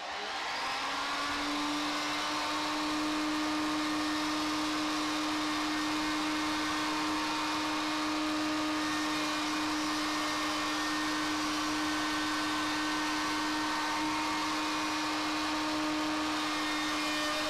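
1400-watt handheld plunge router spinning up to speed in the first second, then running at a steady pitch while its edge-profiling bit cuts along the edge of a wooden board. These are the first passes, taken with the bit's guide bearing not yet pressed against the wood.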